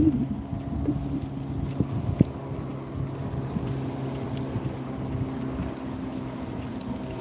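Wind buffeting the microphone and tyre rumble while riding a bicycle, over a steady low hum, with a couple of sharp knocks about two seconds in.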